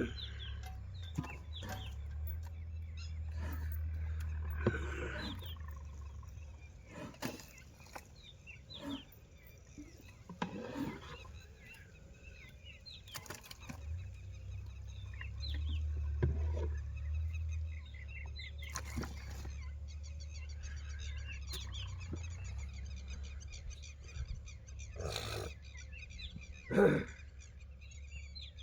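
Birds chirping over a low steady rumble, with scattered knocks and thuds; the loudest thud comes near the end.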